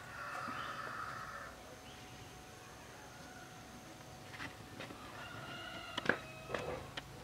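A rooster crowing, at the start and again from about five seconds in. A few sharp metal clicks come from the piston and rings being worked into the engine's cylinder, the loudest about six seconds in.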